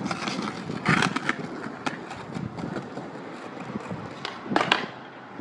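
Skateboard wheels rolling over paving slabs, with sharp knocks about a second in and a louder pair of knocks near the end.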